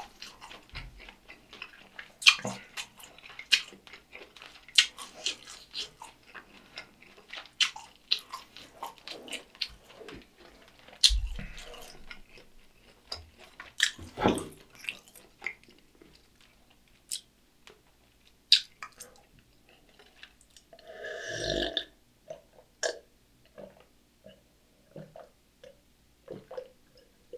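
Close-up eating sounds: a person chewing food with many wet clicks and smacks, dense at first and then sparser, with one louder, longer throaty sound about three-quarters of the way through. Near the end, beer is sipped and swallowed from a glass.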